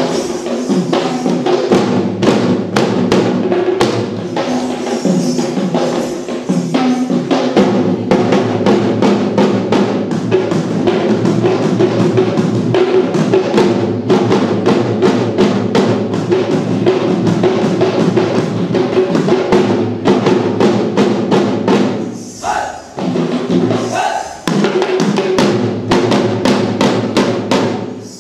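An ensemble of Sri Lankan traditional drums, double-headed barrel drums slung at the waist, played in a fast, dense rhythm. The drumming drops away briefly a couple of times near the end before picking up again.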